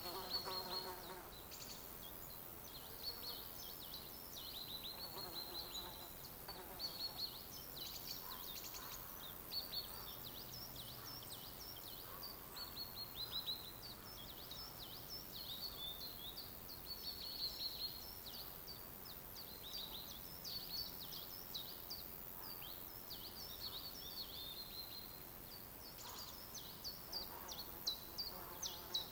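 Songbirds chirping and singing continuously in a forest, short quick notes overlapping, over a faint steady hiss. A lower, fuller call sounds near the start.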